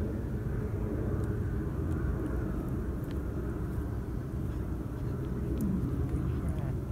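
Steady low outdoor rumble, with a few faint soft clicks of a cat chewing on a dead rat now and then.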